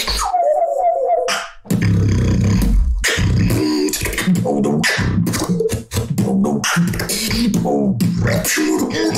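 Solo beatbox routine: a single wavering sung tone on its own for about a second, then a dense beat of vocal bass, kicks and clicks with sung pitched tones layered over it, the water-drop and polyphonic-voice combos.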